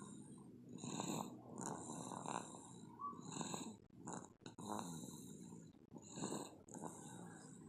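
A baby snoring: short, noisy breaths repeating roughly once a second.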